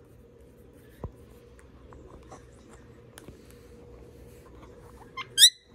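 Indian ringneck parakeet giving a short, sharp rising chirp near the end, just after a brief lower note. Before it, faint scratching and a few light clicks.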